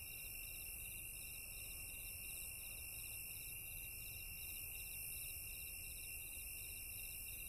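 Faint high-pitched chirring that pulses about three or four times a second, over a steady high whine, a hiss and a low rumble.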